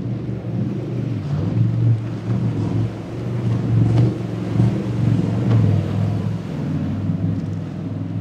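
MTI high-performance catamaran's engines running hard at speed, a steady low drone that swells and dips as the boat crosses the waves, with a few brief splashes or hull slaps in the middle.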